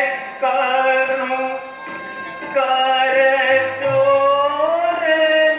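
Kumaoni Ramlila sung dialogue: a performer singing long, wavering held notes in a few phrases, with musical accompaniment.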